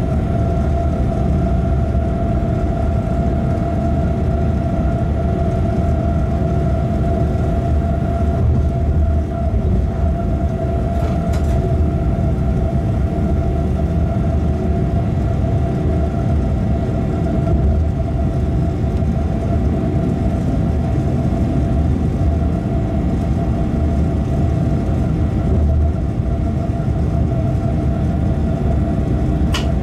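Locomotive running light at steady speed, heard from the cab: a continuous low rumble of wheels and running gear, with a steady hum from on-board equipment. Two faint brief clicks come about eleven seconds in and near the end.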